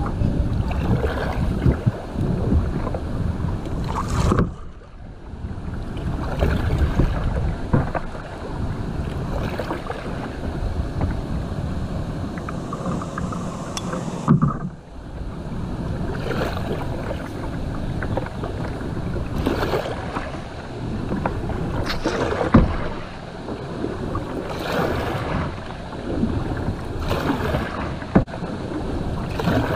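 Current rushing and splashing along a fishing kayak's hull as it drifts down a riffle, with wind buffeting the microphone. Scattered short knocks sound through it.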